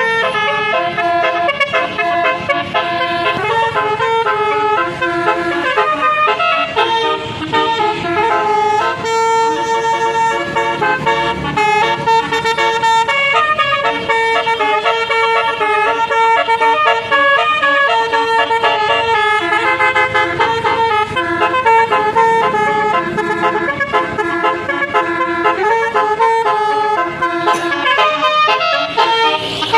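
Basuri telolet bus horn, a multi-tone air horn, playing a continuous melody of quick, stepped notes.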